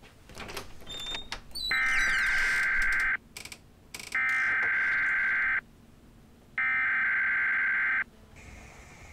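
Emergency alert broadcast signal: three harsh, buzzing data bursts of about a second and a half each, separated by short gaps, after a moment of crackling clicks. It is the warning header that announces an emergency broadcast.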